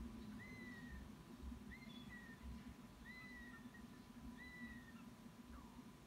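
Faint, thin whistled begging calls from young hawks at the nest: four mewing notes, each about half a second long and slightly falling in pitch, a little over a second apart, over a faint steady hum.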